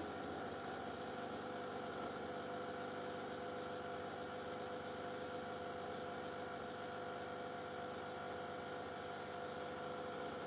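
Samsung WF6450N7W washing machine's drain pump humming steadily, a fixed buzzing drone with no change in pitch, while the machine fails to drain its water.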